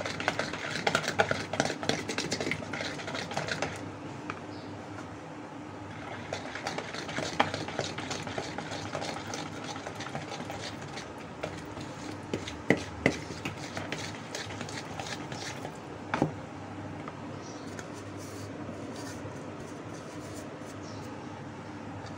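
Hand wire whisk stirring sifted flour mixture into a thin cake batter in a plastic bowl: a fast patter of small strokes that pauses about 4 s in, picks up again, and eases off after about 16 s. A few louder knocks of the whisk against the bowl come near the middle.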